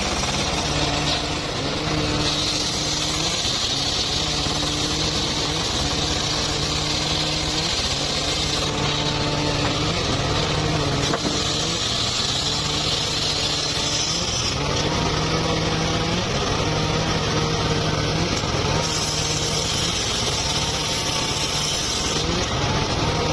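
Engine-driven sawmill saw running while cutting mahogany. The engine note drops and recovers several times under a steady hiss of sawing.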